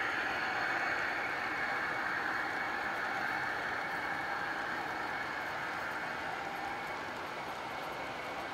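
G scale model train with several Santa Fe diesel locomotives rolling past on garden track, a steady running noise with a faint high whine, slowly getting quieter as the locomotives move off and tank cars follow.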